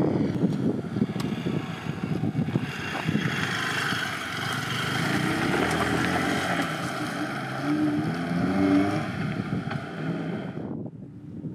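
A motor vehicle's engine running on the move, with wind rushing over the microphone; the engine note wavers up and down in the second half, and the sound drops away sharply near the end.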